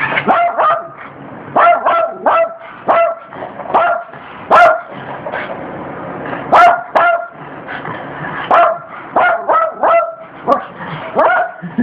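Yorkshire terrier barking in rapid clusters of sharp, high-pitched yaps, about twenty in all, fearful barking at a thermal oven mitt it is afraid of.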